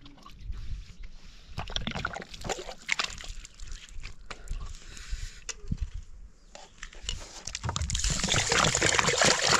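Water sloshing and splashing with scattered knocks and clatters, swelling into louder, steady splashing near the end.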